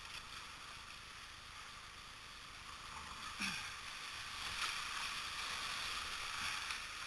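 Rushing whitewater of a river rapid, a steady hiss that grows louder about halfway through as the boat runs into the white water.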